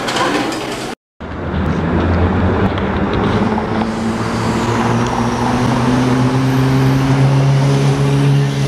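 Café background noise cuts off about a second in. Then comes city street traffic, led by a nearby motor vehicle engine running with a steady low hum that slowly rises in pitch.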